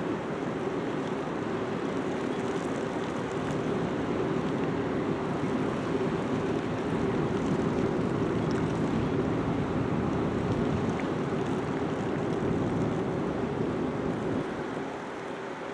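Steady low drone of a ship's engines and machinery, with a wash of water and wind noise over it.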